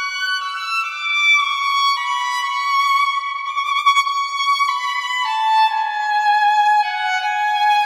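Background music: a solo violin playing a slow melody of long held notes that steps gradually downward in pitch.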